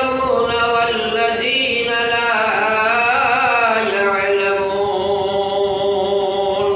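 A man's voice chanting a sermon in a drawn-out, melodic style, the pitch rising and falling. From about four seconds in he holds one long steady note, then breaks off.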